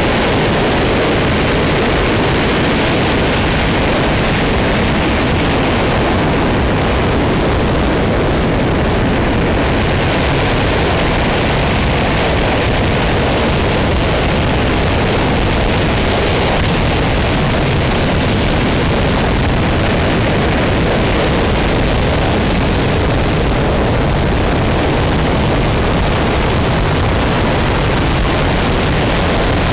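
An RS-25 liquid-hydrogen/liquid-oxygen rocket engine firing on a test stand during a static hot-fire test: a loud, steady, unbroken rush of noise that holds constant throughout.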